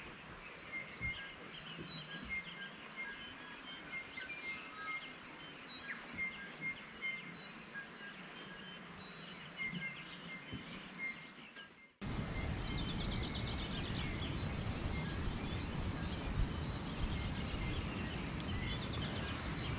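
Faint, short, high bird chirps scattered over a quiet background. About twelve seconds in, this gives way to a steady rush of wind on the microphone, with a few quick bird trills just after the change.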